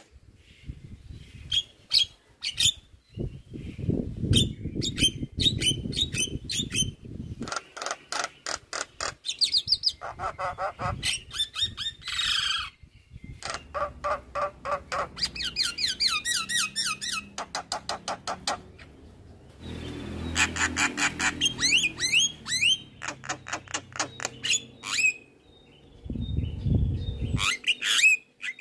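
Javan myna singing a long, varied stream of fast clicking chatter, harsh squawks and gliding whistled notes, broken by short pauses. A low rumble sits under the song a few seconds in and again near the end.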